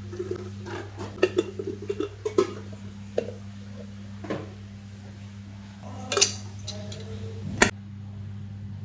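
Kitchen utensils and dishes clinking and knocking together in a loose series of sharp strikes, some ringing briefly. The loudest come about six and seven and a half seconds in, over a steady low hum.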